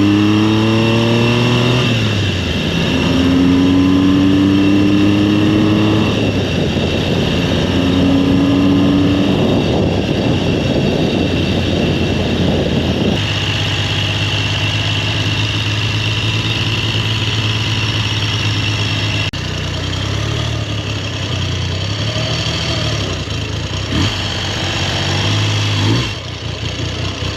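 1969 Triumph Trident's 740 cc air-cooled inline-triple engine revved up three times, then settling into a steady idle with a couple of short blips near the end. It is running smoothly after a head-gasket and valve job and tune-up.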